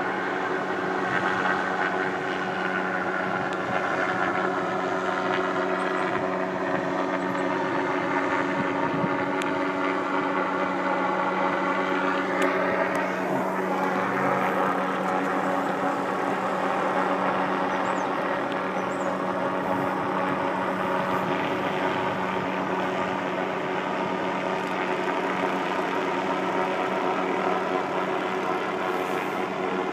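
Steady engine drone with a constant low hum and a higher whine that drifts in pitch, bending down and back up around the middle.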